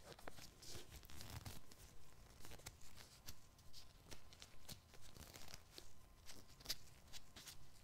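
Latex gloves crinkling and rustling as gloved fingers rub together close to a microphone: a quiet, continuous run of short crackles.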